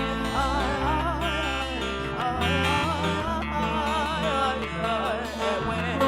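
A woman singing a melody with wavering vibrato over plucked-string accompaniment and long held bass notes.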